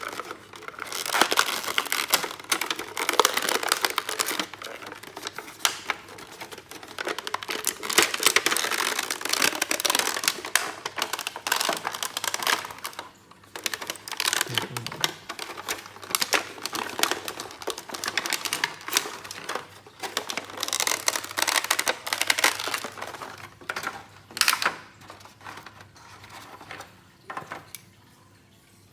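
Plastic packaging crinkling and rustling, with many quick clicks and taps, as a boxed toy is taken out and handled. It goes quiet near the end.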